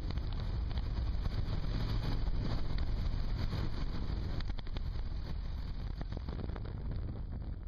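Wind buffeting the microphone on a moving motorcycle, over a steady low rumble of motorcycle engine and road noise.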